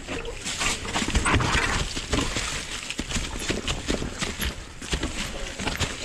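Footsteps scuffing and crunching over rocks and leaves, with the clatter of a mountain bike being walked alongside: irregular knocks and rustling, no steady rhythm.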